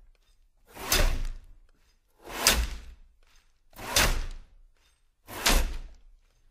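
Background music opening with four heavy percussive hits, evenly spaced about a second and a half apart, each dying away quickly.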